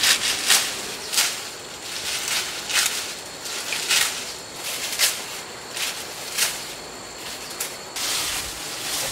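A large knife slicing through bunches of green leaf thatch: a series of sharp swishing cuts with leaves rustling, and a longer rustle near the end as leaves are handled.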